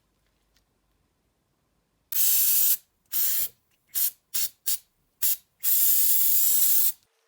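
Hissing spray or air jet in seven bursts: a long one, several short puffs, then a long spray of over a second near the end.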